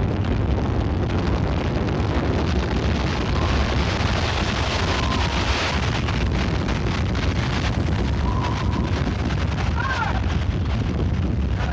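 Tornado wind rushing past, loud and steady, with heavy wind buffeting on the microphone.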